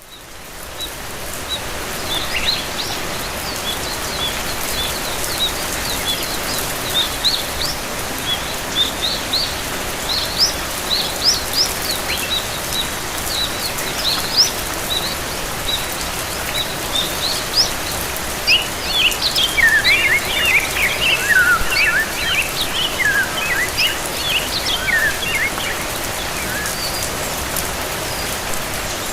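Steady hiss of gentle rain, fading in at the start, with small birds chirping over it throughout; the chirping grows busier and lower-pitched for several seconds past the middle.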